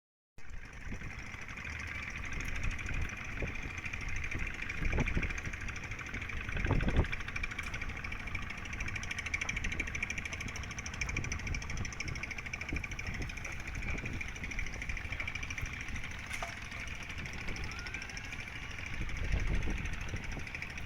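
An engine running steadily with a fast, even knocking rhythm.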